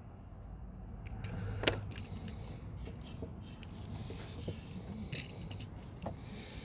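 Small metallic clicks and clinks of an Allen key working a set screw on the wire terminal of a SmartPlug RV power connector head, as the wire is tightened in. One sharper click comes about a second and a half in, and a cluster of clicks about five seconds in.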